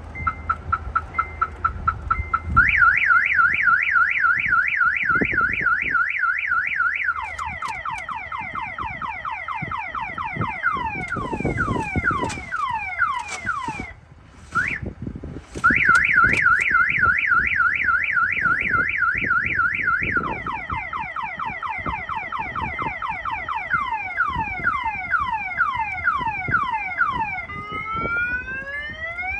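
Car alarm siren on a Honda Civic going off, cycling through its tones: a few short beeps, then a fast warble, then a run of falling whoops. It stops briefly about halfway, then starts over with the warble and falling whoops, and moves to rising sweeps near the end. The locksmith later suspects this alarm is keeping the car from starting after its ignition was changed.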